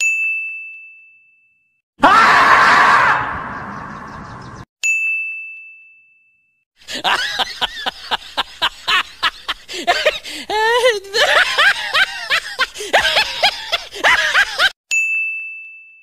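A short bright chime rings three times, separating sound effects. About two seconds in comes a loud screech lasting about two and a half seconds, the "squirrel shout" meme sound; from about seven seconds a longer run of rapid clicks with squealing, wavering cries.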